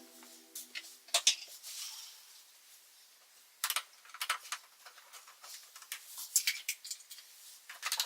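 Scattered light clicks and taps of small hard objects being handled, thickening into a quick run of clicks about three and a half seconds in.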